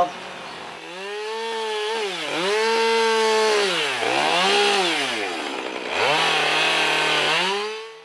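Two-stroke petrol chainsaw revving up and down, its pitch climbing, holding, then dropping and rising again four or five times.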